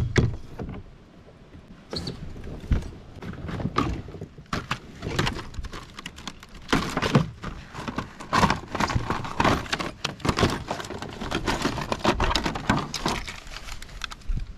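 Hard clear plastic packaging and gear clattering and crinkling as a new fish scale is unpacked by hand in a kayak: an irregular run of sharp clicks and rattles, sparse for the first few seconds and busier from about the middle on.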